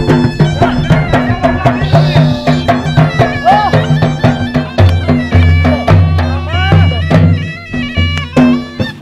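Pashtun attan dance music: a large double-headed dhol drum beaten in a fast, steady rhythm under a reed pipe (surnai) playing a bending, ornamented melody.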